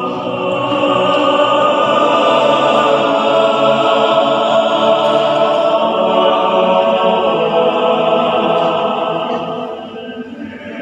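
Men's choir singing in parts, holding long sustained chords; the sound eases off about ten seconds in.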